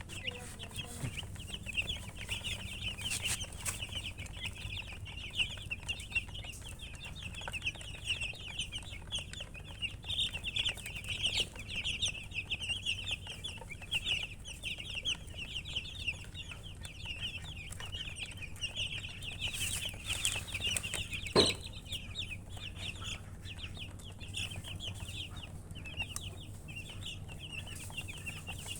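A group of baby chicks peeping continuously, many short, high, falling cheeps overlapping. One sharp knock sounds a little past the middle.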